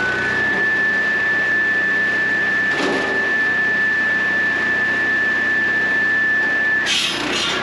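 Millers Falls swing saw's circular blade spinning with a steady high whine over a low running drone, a brief noise about three seconds in, then the blade cutting into a firewood log near the end with a harsh rasping burst.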